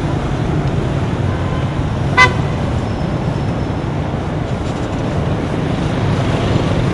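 Steady road-traffic noise with a single short vehicle horn toot about two seconds in.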